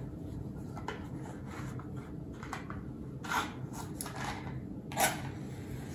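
A matchbox handled and slid open, then a match struck against the box twice with short scratchy strikes, about three and five seconds in, the second the louder.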